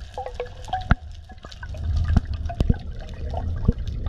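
Underwater sound recorded in the water: a low bubbling rumble from a scuba diver's exhaled bubbles, which swells about halfway through, with scattered sharp clicks and a few short squeaks.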